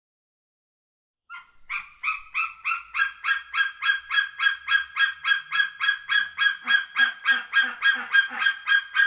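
An eagle calling in a long rapid series of short, clipped two-toned notes, about three or four a second, starting after a second of silence.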